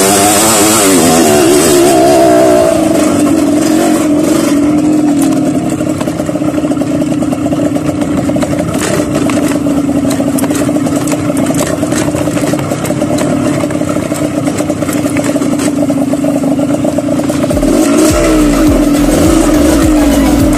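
Dirt bike engine running under a rider, its pitch wobbling up and down with the throttle at first, holding fairly steady through the middle, and rising and falling again near the end. Short clicks and clatter from the bike over rough ground run throughout.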